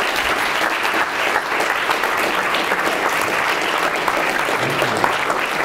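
Audience applauding, a steady dense clapping at the close of a lecture.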